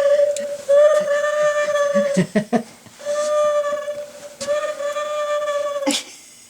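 Battery-powered owl figure playing its electronic hoot: long held tones at one unchanging pitch, repeating with short gaps between them. Short sharp sounds come in the gaps, about two seconds in and again near the end.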